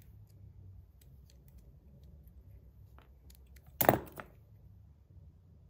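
Faint small ticks of a precision screwdriver and a fidget slider being handled as one side of the slider is opened. There is one sharp click about four seconds in, with a lighter tick just before and after it.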